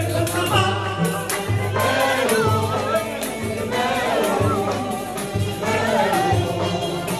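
Live traditional North African ensemble of violins played upright, frame drum, goblet drum and accordion, with voices singing a melody over a steady recurring drum beat.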